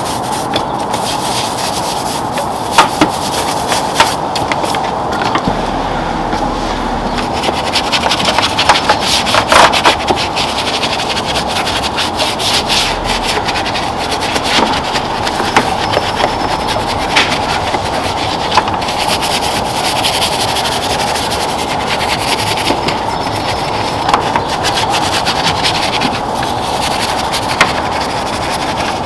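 Bristle detailing brushes scrubbing soapy, foam-covered engine-bay plastics and hoses: continuous scratchy rubbing with frequent sharp ticks and knocks as the brushes hit the parts.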